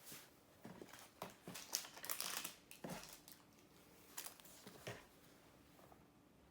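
Faint crinkling and light clicks of packaging and small items being handled, in scattered bursts for about five seconds before it goes quiet.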